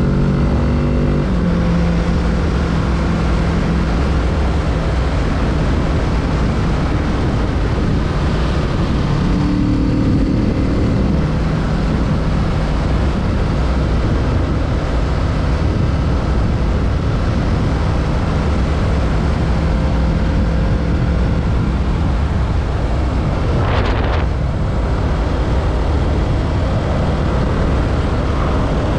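A 2020 Kawasaki Z650's parallel-twin engine running under way, its note holding steady with a few small rises and falls in pitch, over constant wind rush on the microphone. There is a brief burst of hiss about three-quarters of the way through.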